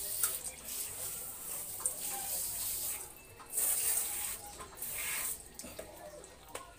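Water from a garden hose spraying onto a dog's wet coat and a tiled floor, a steady hiss that breaks off about three seconds in, comes back briefly, then fades near the end.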